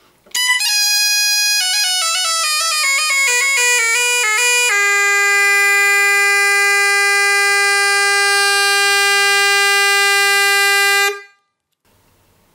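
A double-reed wind instrument plays through its range one note at a time, stepping down about an octave. It then holds its lowest note steadily for about six seconds and stops abruptly. The tone is bright and reedy.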